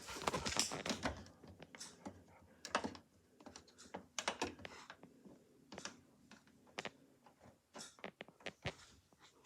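Bush washing machine making scattered sharp clicks and light knocks at irregular intervals, with a faint hum in the middle.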